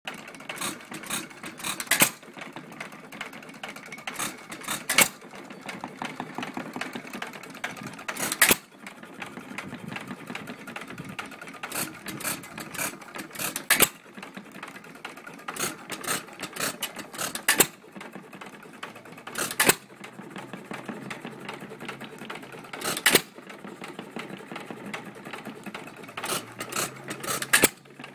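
A 2 1/2 hp Empire hopper-cooled single-cylinder hit-and-miss engine running. It fires with a sharp bang only every few seconds, eight times in all, and coasts between firings with a light fast clatter of its valve gear and igniter.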